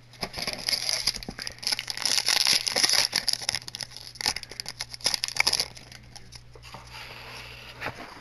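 Foil wrapper of a Yu-Gi-Oh! Mega Pack booster pack crinkling as it is handled and torn open, loudest for the first five or so seconds, then a lighter rustle.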